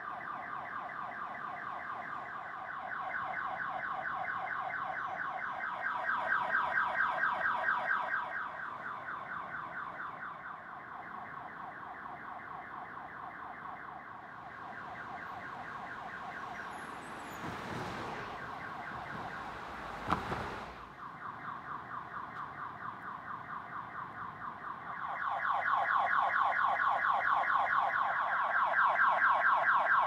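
Car alarm blaring: a fast, repeating pulsed tone that goes on without a break, growing louder near the end. Partway through, a car passes by with a rising and fading rush of tyre noise.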